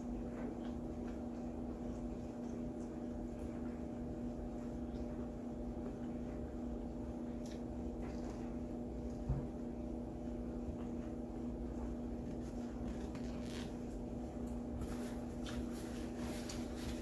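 A person chewing food, with faint wet clicks that grow more frequent in the last few seconds, over a steady low electrical hum. A single short knock comes about nine seconds in.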